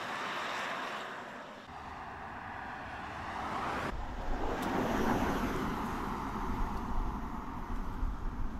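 BMW 5 Series sedan driving past: a smooth rush of tyre and wind noise without a distinct engine note. It swells and fades, breaks off suddenly about four seconds in, then a second pass swells to its loudest about a second later and trails away.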